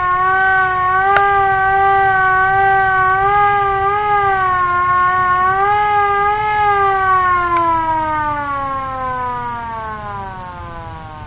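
Chinese WWII-era hand-cranked air raid siren sounding the Attack signal, its tone wavering up and down. About seven seconds in it winds down, the pitch falling steadily as it fades. It is heard through a glass door.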